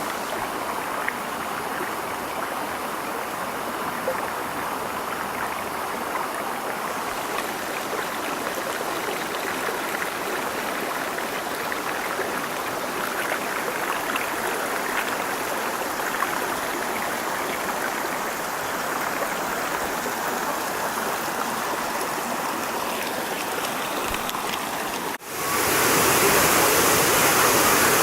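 Steady rushing of falling water from a mountain waterfall and its stream. About 25 seconds in, the sound breaks off for an instant and comes back louder.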